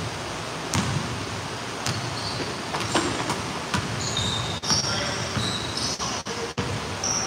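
A basketball bouncing on a hardwood gym floor, several separate bounces about a second apart, over the general noise of players moving on the court.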